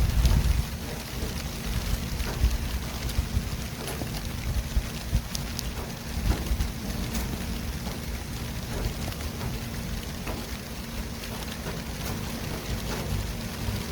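City traffic ambience: a steady low rumble of vehicles, heavier in the first half-second, under an even hiss with scattered small clicks.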